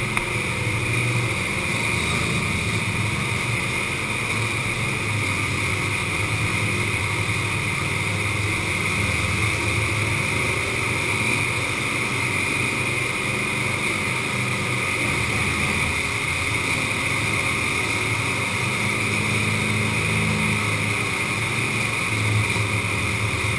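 ATV engines running steadily as the quads drive through shallow water inside a concrete culvert, with the low engine tones wavering slightly in pitch over a constant wash of noise.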